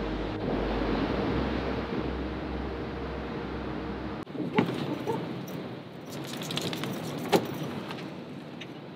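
Ocean surf washing steadily with a low rumble. About four seconds in it cuts to a camper van's open sliding side door: a sharp knock, a run of light metal jingling, and another sharp knock near the end.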